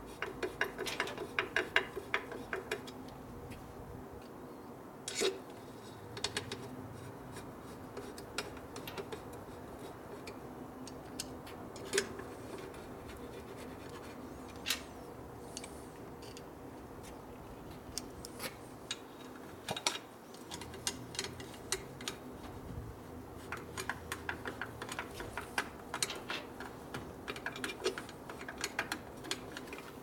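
A screwdriver starting the screws of a 1967 Harley-Davidson Shovelhead's primary cover. Quick clicks and scrapes of tool on screw heads come in a burst near the start and again in the last several seconds, with a few single clicks between, over a faint steady hum. The screws are being run in loosely so the gasket stays in place until all are started.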